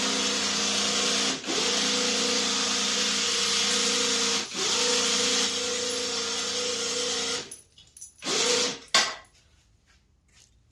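Badland 2500 electric winch motor running under remote control, spooling the cable in with a steady drone. It pauses briefly twice, stops about seven and a half seconds in, then gives one short burst followed by a click.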